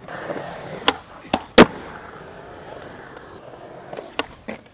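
Skateboard wheels rolling with a steady rumble, broken by three sharp clacks of the board about a second in, the last and loudest a second and a half in. A few lighter knocks of the board follow near the end.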